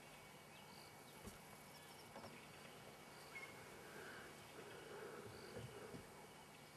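Near silence: faint bush ambience with small, high insect or bird chirps now and then.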